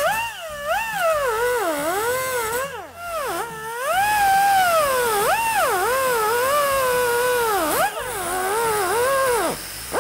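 Cutoff wheel grinding through the steel head of a ball-joint rivet: a loud, high whine whose pitch keeps sagging and recovering as the wheel is pressed into the cut. The pitch drops sharply about three seconds in and again near the end.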